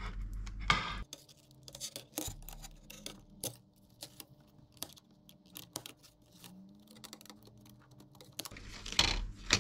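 Plastic clicks and cracks from a digital kitchen scale's casing being pried apart with a multitool blade: irregular light clicks throughout, with louder ones at the start and near the end.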